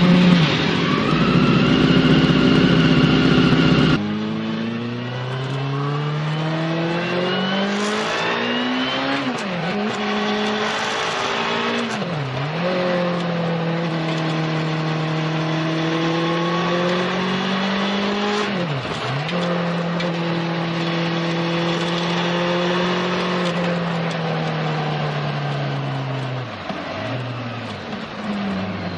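1989 Honda CB-1's 400 cc inline-four engine on its stock exhaust, heard on the move: the engine note climbs through the gears with three quick upshifts, the first two close together, then holds a fairly steady note and eases off near the end. The first few seconds carry a louder, rougher engine sound that cuts off abruptly.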